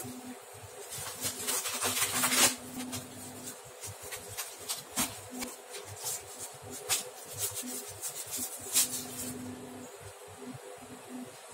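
Chicken stock boiling hard in a nonstick frying pan, bubbling and crackling, as slices of raw beef sirloin go in, with a louder hissing surge about two seconds in. A low steady hum runs underneath, dropping out now and then.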